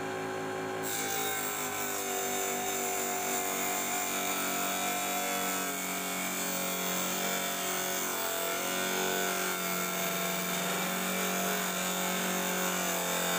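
A low-wattage (80–100 W) mini table saw runs with a steady motor hum while its blade cuts through a white sheet of board. A rasping cutting noise joins about a second in and goes on steadily as the sheet is pushed through.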